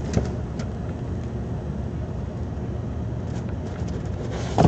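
Cardboard hobby boxes being worked out of a tightly packed case, with a few faint clicks and knocks and a sharper knock near the end, over a steady low background rumble.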